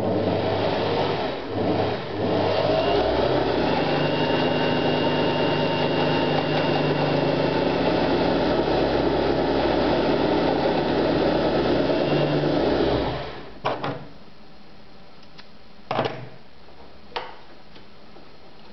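A Neckermann sewing machine's electric motor runs steadily under the foot controller, winding a bobbin. It dips briefly twice near the start and stops after about thirteen seconds. A few sharp clicks follow.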